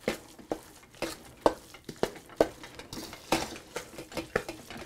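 Metal spoon stirring and scraping a thick ground-vegetable mash in a stainless steel mixing bowl, with irregular clinks and scrapes against the bowl's side.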